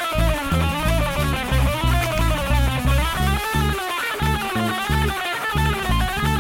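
Background music: guitar with a bass and a drum kit, at a steady beat.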